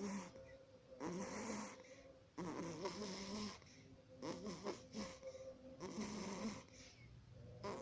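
Snoring from a small sleeper: a run of snores about every second and a half, each under a second to about a second long, with a wavering, buzzing pitch.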